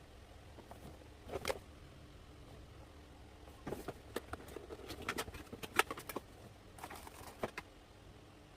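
Scattered light clicks and taps, as of small objects being handled, with one about a second and a half in and a busier run of them from about four to seven and a half seconds; no hair dryer running.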